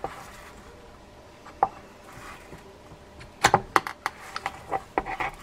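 Metal reel parts clicking and knocking together as a lever-drag assembly is fitted back into a fishing-reel spool. There is one click about a second and a half in, a cluster of sharp knocks about three and a half seconds in, then a few lighter clicks.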